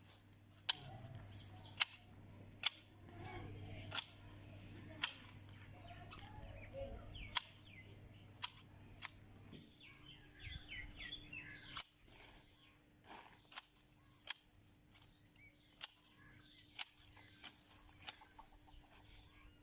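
Manual hedge shears snipping shrub branches: a sharp snap every second or so as the blades close.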